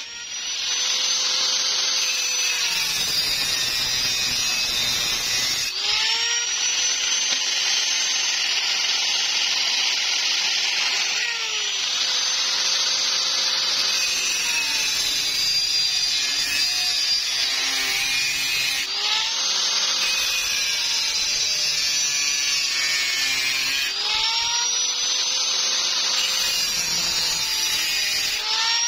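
Angle grinder with a cut-off disc cutting through galvanized square steel tubing: a continuous grinding hiss and whine, its pitch bending every five or six seconds.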